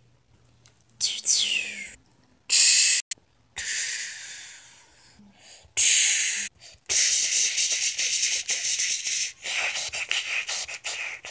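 Mouth-made fight sound effects: a string of breathy hissing and whooshing noises, with a falling whistle-like sweep about a second in and a long, rapidly fluttering hiss from about seven seconds on.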